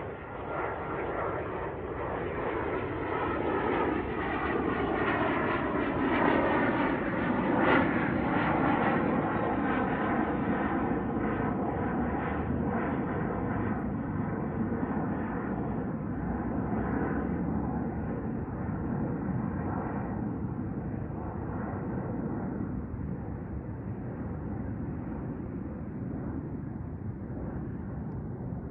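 Jet airliner's engines during a takeoff climb-out: a steady rumble with a whining tone. It grows louder over the first several seconds, is loudest about eight seconds in with the whine dropping slightly in pitch, then slowly fades.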